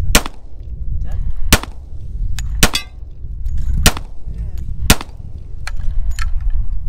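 Five handgun shots fired one at a time at a steady pace, roughly one a second, each sudden and sharp.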